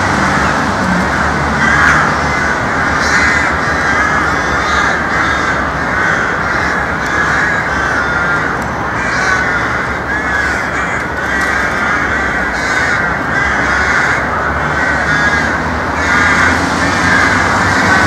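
A colony of crows cawing, many calls overlapping without a break, over a steady low hum in the background.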